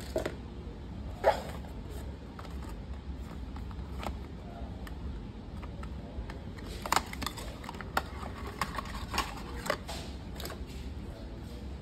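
Hands handling cardboard and plastic packaging: scattered taps, knocks and light rustles, the loudest a sharp knock about a second in and a run of clicks from about seven seconds on, over a steady low rumble.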